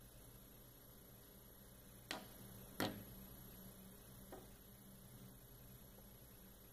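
Faint steady electrical hum with a thin high whine, broken by two sharp clicks about two and three seconds in and a faint tick a little later.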